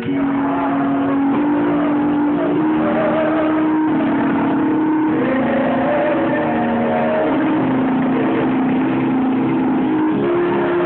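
Music from an organ-like keyboard holding sustained chords that change pitch every second or so, coming in suddenly.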